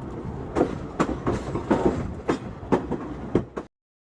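Train wheels clicking over rail joints as the train rolls along, a steady rumble with sharp clacks roughly every half second; the sound cuts off suddenly near the end.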